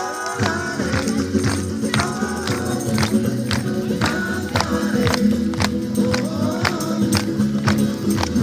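Music: singing voices over a steady beat of sharp percussion strikes, about three a second.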